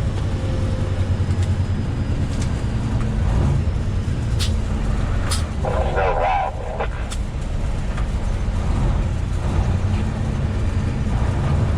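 Semi truck's diesel engine and road noise droning steadily inside the cab while driving. A few sharp clicks and a brief higher-pitched sound come about five to seven seconds in.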